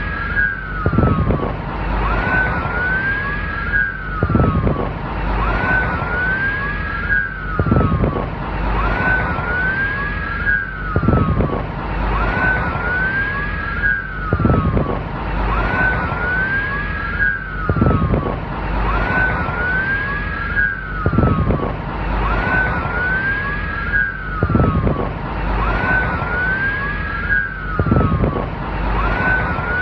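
Police car siren wailing, its tone rising and falling in overlapping sweeps that repeat evenly about every three and a half seconds as a loop, with a short low pulse in each cycle.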